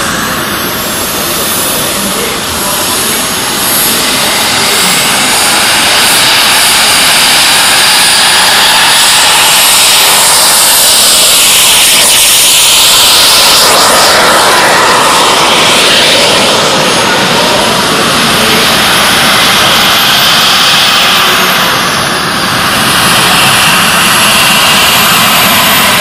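Model turbine (jet) engines of radio-controlled MD-11 airliner models running on the runway: a loud, steady rush with a thin high whine that glides up and down. It swells loudest about halfway through, dips, and rises again near the end.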